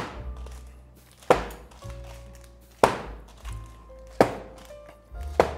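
Meatloaf-filled metal loaf pans dropped onto a wet towel on a wooden board, five heavy thunks about every second and a half; they pack the ground meat mixture down and knock out air pockets so the loaf won't crumble when sliced. Background music plays underneath.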